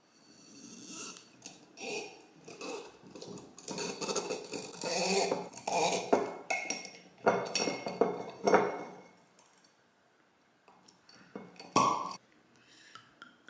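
A wine bottle being opened by hand with a manual corkscrew: irregular metal scraping, squeaking and clinking against the glass as the corkscrew is worked into the cork and levered. About twelve seconds in, a single short, loud pop as the cork comes free.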